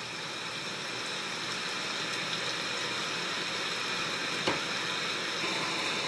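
A Google smart speaker playing its bedtime running-water sound, a steady hiss of rain or flowing water that slowly fades in. A small click about four and a half seconds in.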